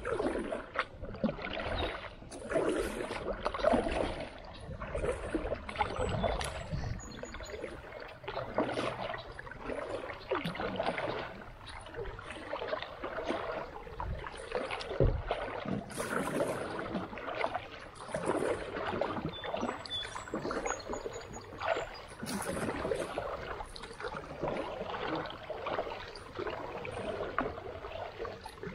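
Creek water splashing and sloshing in an irregular, continuous run of strokes, with scattered sharp knocks.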